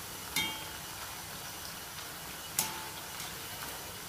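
Oil sizzling steadily as spinach murukku deep-fry in a cast-iron pan, with two sharp metallic clinks, one just after the start and one about two and a half seconds in, as steel tongs and a wire slotted spoon knock against the pan while the pieces are turned.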